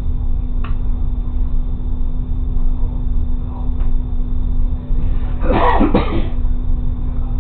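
Railcar running at low speed, heard from the cab as a steady low rumble with a constant hum. A little past halfway a person coughs twice in quick succession, the loudest sound here.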